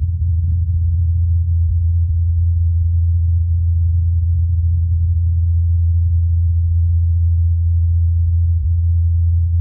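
Ingenuity Mars helicopter's rotor blades spinning at 2,537 rpm in flight, picked up by the Perseverance rover's microphone as a steady low hum.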